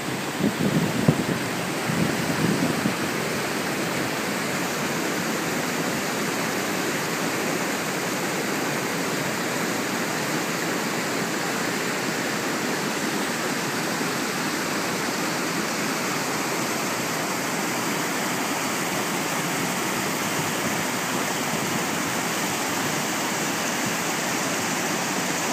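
Water rushing over boulders in a rocky creek below a waterfall: a steady, even rush with no let-up. A few low rumbles come in the first couple of seconds.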